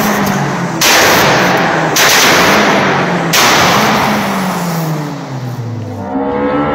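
Modified exhaust of a Toyota RunX hatchback being revved hard in an underground car park: repeated loud rasping blasts, each about a second long, starting about one, two and three and a half seconds in, with the engine note falling between them. Near the end it cuts to another car's engine revving up and down.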